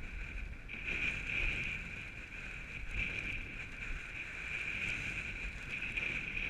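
Strong gusting wind buffeting the camera microphone, an uneven low rumble, with a steady high-pitched whistle running through it.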